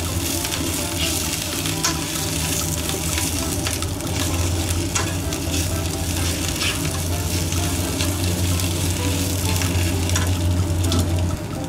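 Shishito peppers and chikuwa slices sizzling in a nonstick frying pan while being stirred and tossed with chopsticks, which click against the pan now and then, over a steady low hum.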